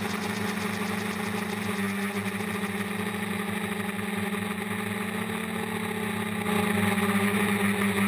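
The DJI Flame Wheel F450 quadcopter's four brushless motors and 8-inch propellers humming steadily, heard from the onboard camera with a rushing noise around the hum. The hum gets louder about six and a half seconds in.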